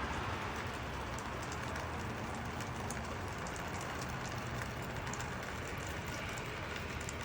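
Steady hiss of a snowstorm, falling snow with faint light ticks scattered through it.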